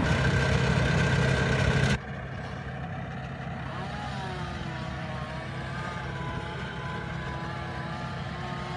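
An engine running steadily. It cuts off abruptly about two seconds in, leaving a quieter engine running with a slightly wavering pitch.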